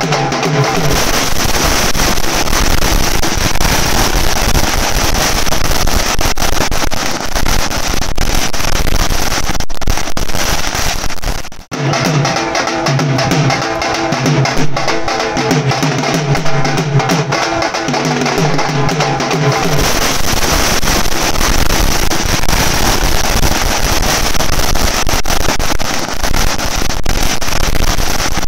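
A street band of strap-hung drums playing loudly, with a brief break about twelve seconds in. Near the end, ground firecrackers fizz and crackle.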